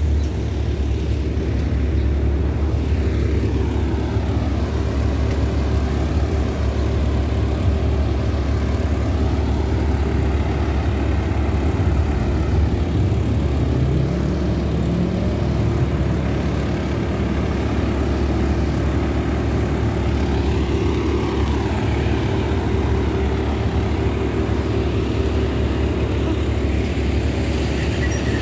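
Heavy diesel engine hum of buses and street traffic, steady and loud. About halfway through, an MTA express coach's engine rises in pitch as it accelerates away.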